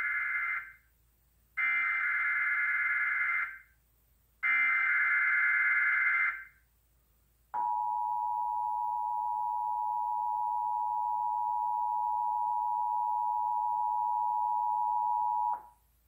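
Emergency Alert System broadcast through a TV speaker. It opens with the end of one SAME header data burst and two more full bursts, each about two seconds of harsh digital warbling with short gaps between them. These are followed by the EAS two-tone attention signal (853 and 960 Hz sounded together), held steady for about eight seconds, announcing a test tornado watch.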